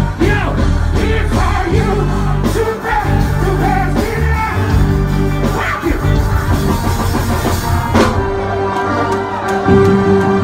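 Live reggae band playing, heavy on bass and drums, with a singer's voice over it. From about two-thirds of the way in, a long held note sounds over the band.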